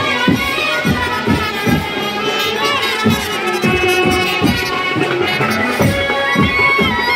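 Indian wedding brass band playing: trumpets carrying a loud melody over a steady drum beat, with brass horns filling in beneath.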